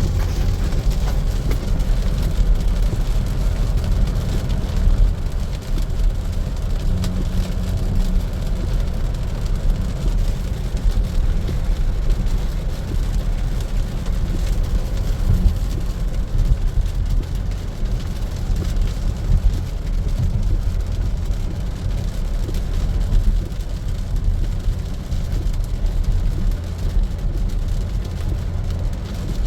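Tesla Model Y, an electric car with no engine note, driving on a wet road in the rain: a steady low road and tyre rumble with a faint hiss of rain and spray over it.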